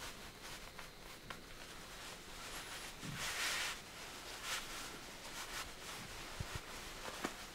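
Necktie and shirt fabric rustling as a tie is knotted and pulled snug at the collar: soft swishes, the loudest about three seconds in and a shorter one about a second later.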